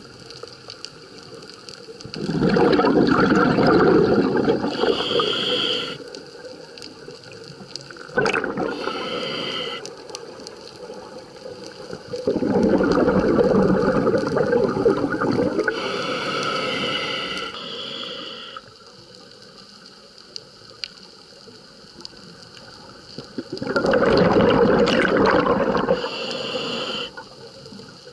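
A scuba diver breathing through a regulator underwater: three long bubbling exhalations about ten seconds apart, with shorter, higher hisses of inhalation between them.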